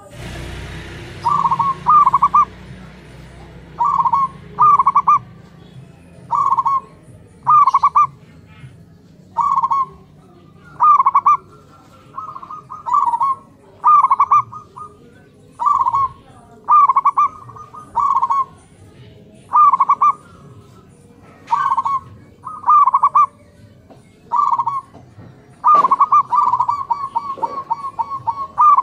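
Zebra doves (perkutut) cooing back and forth, short rolling coo phrases repeated about once a second. Near the end one breaks into a longer run of rapid notes.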